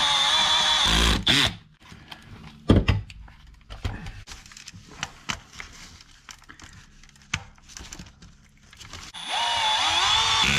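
Cordless electric screwdriver running as it drives screws into an RC car's parts, a whirring motor whose pitch bends under load. It runs for about a second at the start and again near the end, with small clicks and taps of handled screws and parts in between.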